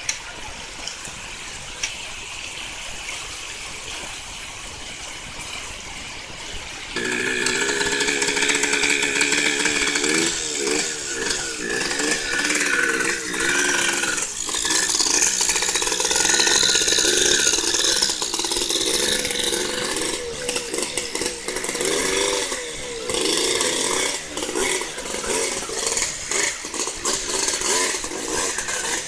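Rushing stream water, then about seven seconds in a two-stroke dirt bike engine fires up and runs, revving up and down unevenly as the bike is worked through the water.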